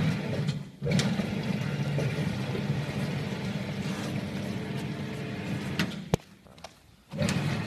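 Karipap/samosa forming machine (model RG80) running with a steady motor hum; it stops with a sharp click about six seconds in and starts up again about a second later.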